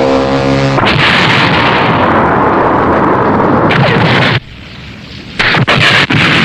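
Tokusatsu explosion sound effects. A steady pitched hum cuts straight into a long, loud explosion rumble that stops abruptly. About a second later come three more loud blasts in quick succession.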